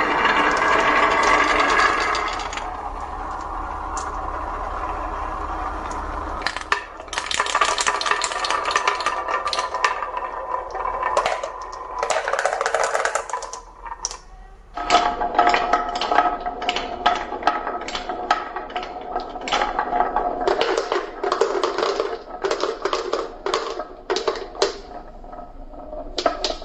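Marbles rolling and clattering down a wooden marble run track, a steady rolling sound broken by many quick clicks as they hit the track and one another.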